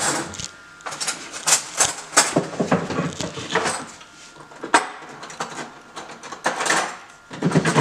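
Irregular clinks and knocks of cutlery and kitchen utensils as a large knife is fetched.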